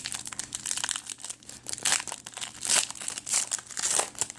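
Plastic trading-card pack wrapper crinkling and crackling as it is handled and opened, with louder crinkles about two, three and four seconds in.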